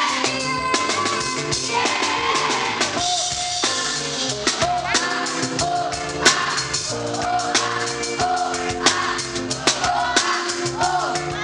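Live pop band playing over the venue's sound system: a drum kit beat with regular sharp hits, electric guitar, and a woman singing into a microphone.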